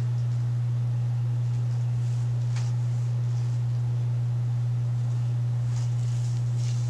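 A steady low electrical hum, one unchanging tone. Faint rustles of hands handling hair come about two and a half seconds in and again near the end.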